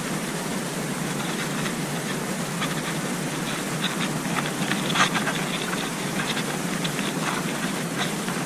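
Steady outdoor hiss with scattered small clicks and ticks, the loudest about five seconds in.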